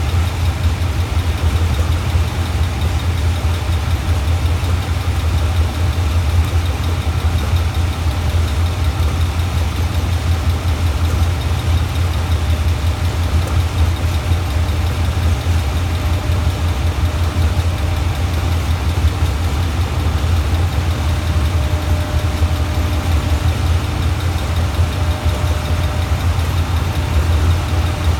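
Diesel locomotive engines running steadily at low power: a loud, even low drone with no change in pitch.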